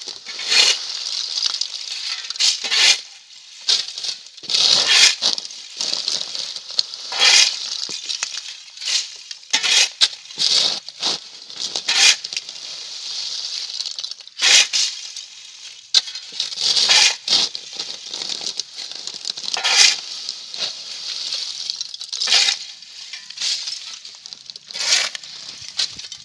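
Shovel scooping and scraping through a heap of coconut-shell charcoal, the brittle pieces clinking and rattling against each other with each stroke. The strokes come irregularly, every second or two, with a longer scrape a little past the middle.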